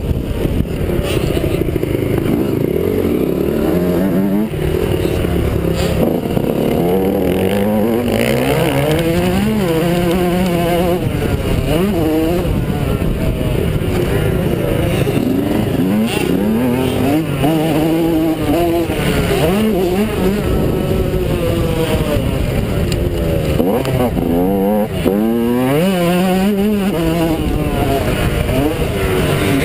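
Yamaha YZ125 two-stroke motocross engine at race pace, its pitch climbing and dropping again and again as the rider accelerates and backs off around the track.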